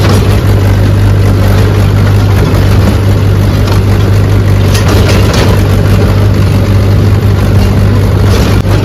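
Old tractor's diesel engine running at a steady speed, heard loud and close from the driver's seat.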